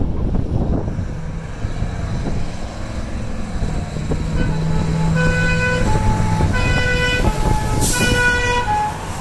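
Scammell Nubian Mk10E fire crash tender driving past with its Cummins V903 V8 diesel running. About halfway in, its two-tone warning horns start up, switching between a high and a low note about every half second.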